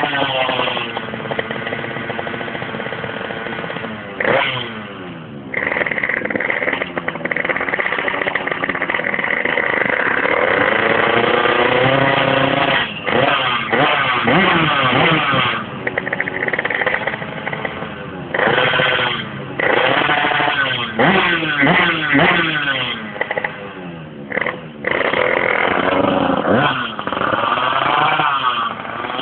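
Yamaha Force 1 drag bike's two-stroke engine being revved up and down over and over during a tune-up, the pitch climbing and falling repeatedly with several brief sharp dips as the throttle is snapped shut.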